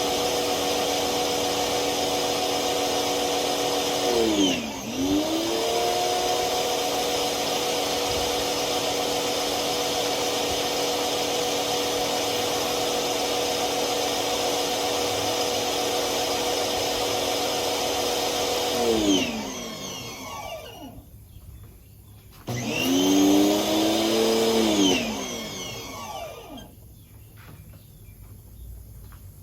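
Bauer electric pressure washer's motor and pump running steadily at a loud level; its pitch dips and recovers about four seconds in, then it winds down as the trigger is let go, starts up again briefly a few seconds later, and winds down once more.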